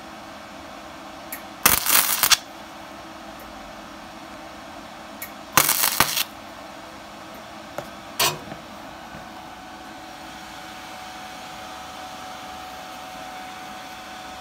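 MIG welder tacking a sheet-metal panel: three short bursts of crackling arc about two, six and eight seconds in, the last the shortest, over a steady low hum.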